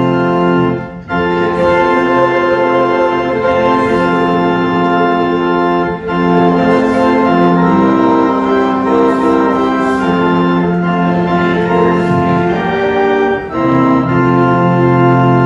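Church organ playing slow, sustained chords, with three brief breaks between phrases.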